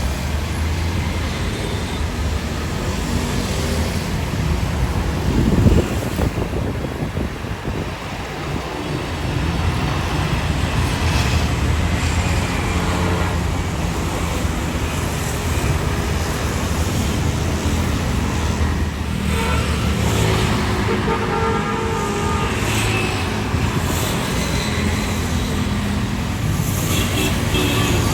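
Steady outdoor noise of jet airliner engines, an Airbus A321 coming in to land, mixed with road traffic, with a brief louder peak about five seconds in.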